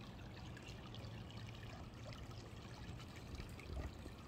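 Faint, steady trickle of water in a shallow, rocky woodland creek.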